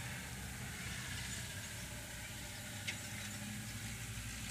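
Railway station background noise: a steady low hum, with a single faint click about three seconds in.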